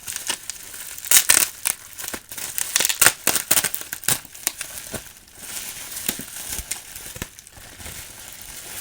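Plastic bubble-wrap packaging being crinkled and torn open by hand, a dense run of sharp crackles that is loudest in the first half and thins out after about five seconds.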